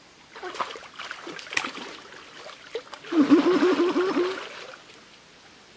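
River water splashing and gurgling around a person standing in it, scattered small splashes at first, then a louder wavering gurgle for about a second and a half, three seconds in.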